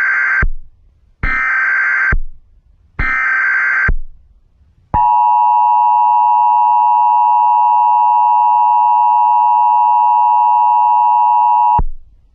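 Emergency Alert System data header: three short bursts of screeching modem data, each just under a second, followed by the EAS attention signal, a steady chord of tones held for about seven seconds that cuts off suddenly. Together they mark the start of a new alert.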